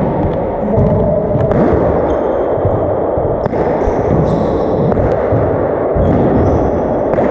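Racquetball rally on a hardwood court: several sharp cracks of the ball off racquets and walls, with short high squeaks of sneakers on the floor and footfalls close to the floor-level microphone, all echoing in the enclosed court.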